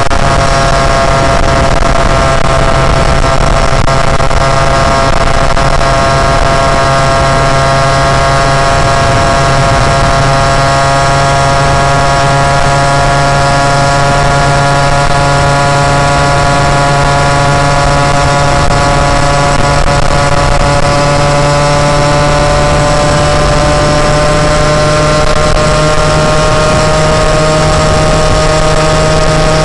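Moped engine running steadily under way, its pitch creeping slowly upward in the second half.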